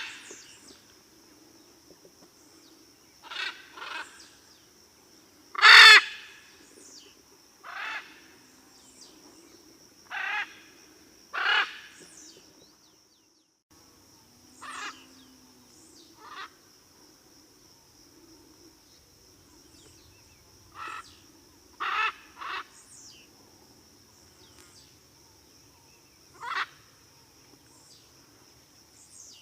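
Blue-and-yellow macaw giving short, harsh squawks, singly or in quick pairs every few seconds; the loudest comes about six seconds in. A steady, thin high-pitched tone runs behind the calls.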